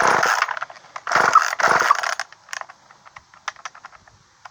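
Two short rattling bursts from a Poulan Micro Pro two-stroke chainsaw engine being pull-started, each lasting about a second. The engine does not keep running after the second one, and light clicks follow. The saw will not hold an idle after its idle screw was turned in.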